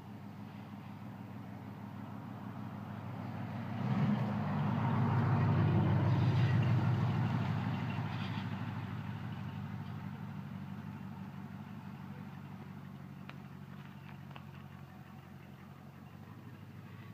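A motor engine passing by, with a steady low hum that grows louder for a few seconds, peaks, then slowly fades away. There is a short bump about four seconds in.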